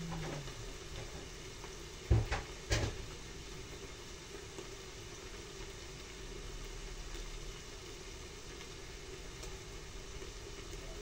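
Two sharp knocks about half a second apart, a couple of seconds in, over a steady low hum.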